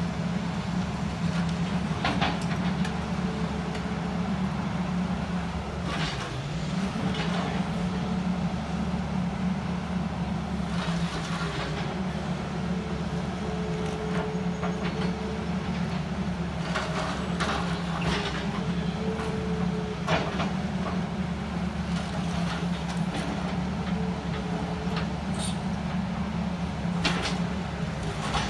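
SANY hydraulic excavator's diesel engine running steadily as its bucket breaks down a brick wall, with a handful of sharp knocks and crashes of brick spread through.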